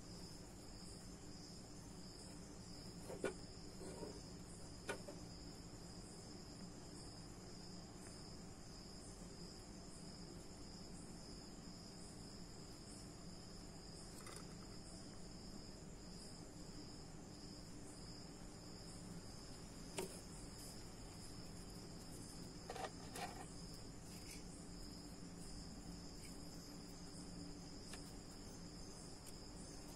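Crickets chirping steadily, a continuous high pulsing trill. A few faint taps and knocks come and go as the wooden lure blank is handled, the clearest about three seconds in and near twenty seconds.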